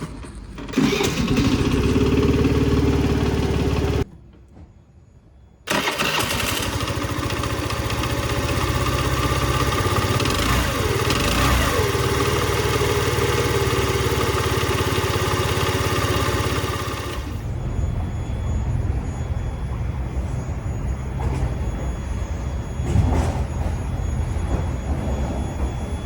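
Honda Today moped scooter's engine running on a newly fitted battery. It cuts out abruptly for about two seconds, comes back, and becomes quieter about two-thirds of the way through.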